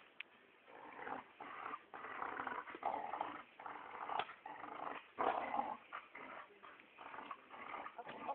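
Small dog growling in play as it worries a soccer ball, in a string of short, uneven growls that are loudest through the middle.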